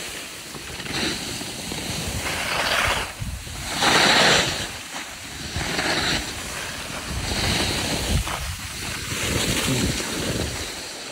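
Skis hissing and scraping over snow through a series of turns, swelling every second or two, with wind buffeting the microphone.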